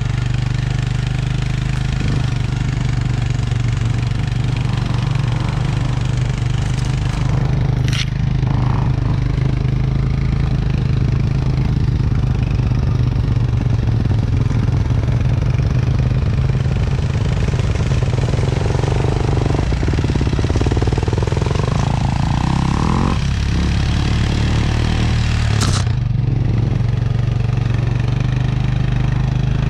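Motorcycle engine running steadily under load while towing a dead bike on a strap. Its pitch rises and falls a few times about two-thirds of the way through. Two sharp knocks come through, one about a quarter of the way in and one near the end.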